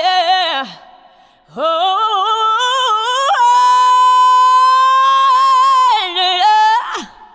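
A high voice singing unaccompanied: a phrase that slides down and ends just under a second in, then after a short gap a rising slide into one long held note that wavers with vibrato near the end and drops off in a downward slide.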